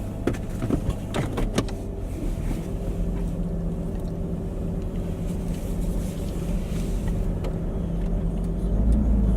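Car engine running steadily, heard from inside the car, with a few sharp clicks in the first two seconds.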